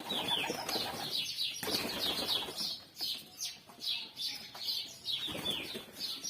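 Pigeons flapping their wings, with a rapid run of short, high, falling chirps.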